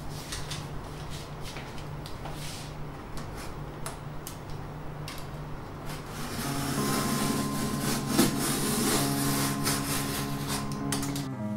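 A cardboard shipping box being handled and its packing tape cut open, with rubbing, scraping and light knocks over a steady low hum. About halfway through the scraping gets louder and background music with held notes comes in.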